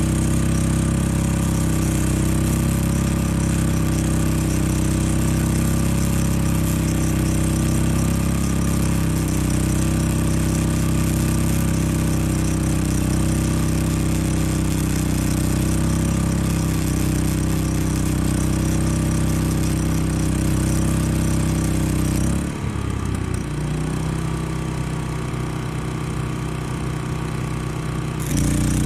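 Flux-core wire welder arc crackling and hissing steadily, with the welder turned down a little from full power, while a Champion 3400-watt inverter generator's engine runs under the welding load. About three quarters of the way through the arc stops and the generator's engine drops to a lower speed; the arc strikes again just before the end.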